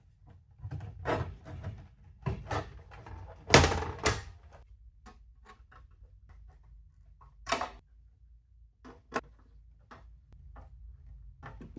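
Hard drive bracket being worked back into a cramped Antec NX200M PC case: a string of irregular knocks, clunks and scrapes as it is pushed and fitted into place. The loudest clunks come about three and a half to four seconds in.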